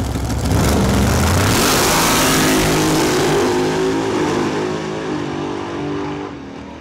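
Drag race cars at wide-open throttle making a pass down the strip. The engines are loud for the first few seconds, then fade as the cars pull away.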